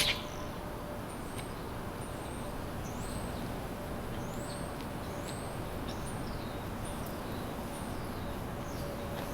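Small birds chirping: many short, high, sweeping calls scattered throughout, over a steady background hum of the city. A single sharp click right at the start is the loudest sound.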